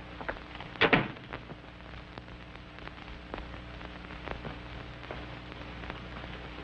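A door handle and latch click open about a second in, a short double rattle. Underneath runs the hiss, low hum and faint scattered crackle of an old optical film soundtrack.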